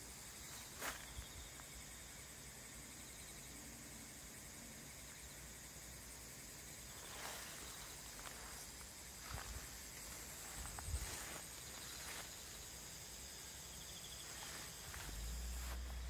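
Steady background chorus of insects singing in the vegetation, with a few soft footsteps and rustles through the weeds and grass, and a low rumble near the end.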